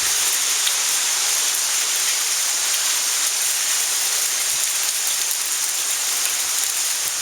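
Heavy thunderstorm rain pouring steadily, a dense even hiss with a few faint sharp ticks.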